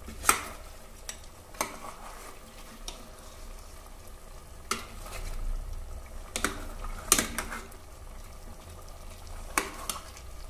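Steel ladle stirring mutton pieces in a pressure cooker pot, clinking and scraping against the metal every second or so, with the loudest knocks at the start and about seven seconds in. A low sizzle of the meat frying with turmeric runs underneath.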